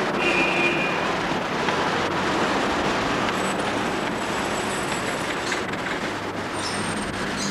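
Steady, dense noise of road traffic.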